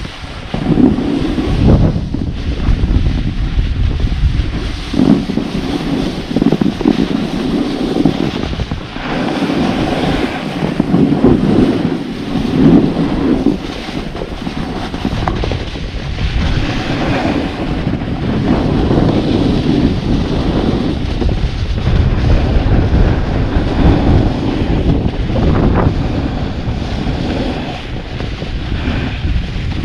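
Wind buffeting an action camera's microphone as a snowboard slides down a groomed slope, its edge scraping and hissing on the snow. The noise swells and eases every few seconds with the turns.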